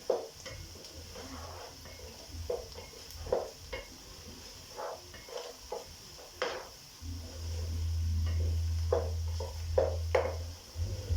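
A wooden spoon stirring onions and beef frying in a pot, with irregular knocks and scrapes against the pot over a faint sizzle. A steady low hum comes in about seven seconds in and stops about three seconds later.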